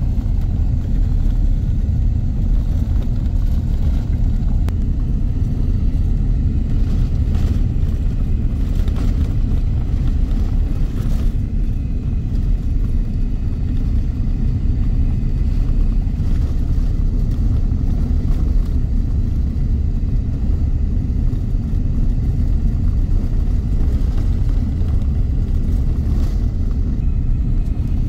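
Car driving along a road: a steady low rumble of road and engine noise, heard from inside the cabin.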